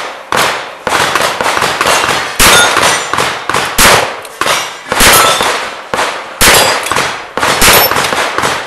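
A fast string of handgun shots, about two to three a second, each with a short echo. Several are followed by the high ringing clang of struck steel targets.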